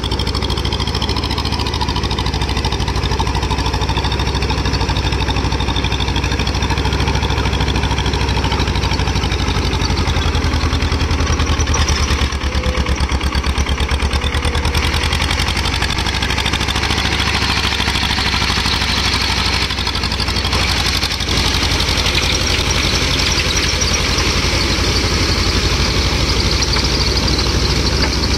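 TAFE 30 DI tractor's three-cylinder diesel engine running steadily under load, pulling a rotavator through the mud and water of a flooded paddy field.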